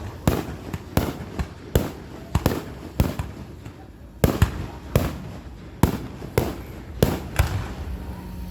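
A rapid, irregular series of sharp, loud bangs, roughly two a second, each with a brief echo after it, with a short lull midway.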